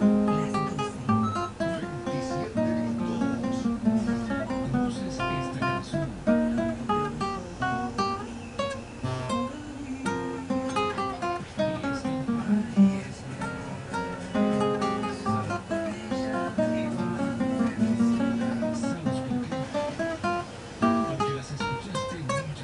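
Acoustic guitar played by hand, a continuous run of plucked notes and chords.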